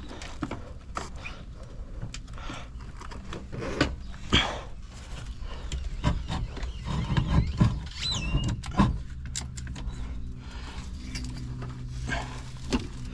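Irregular clicks, knocks and rattles of hand work pulling a truck's wiring harness and plastic clips free, with a short squeak about eight seconds in and a low steady hum underneath.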